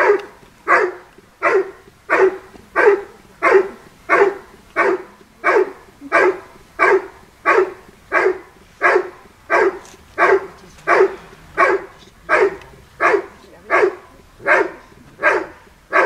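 Dog barking steadily and repeatedly at a helper hidden in a blind, about three barks every two seconds. This is the hold-and-bark (Verbellen) of a protection-work routine, in which the dog has found the decoy and holds him in place by barking.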